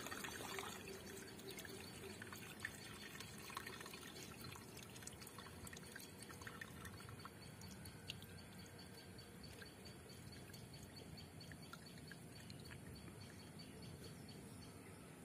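Faint trickle of water draining from a large plastic water tank, with scattered light drips.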